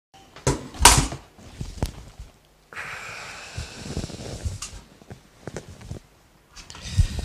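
Knocks and clatter of objects being handled and set down, the loudest about a second in, with a hiss lasting about two seconds near the middle.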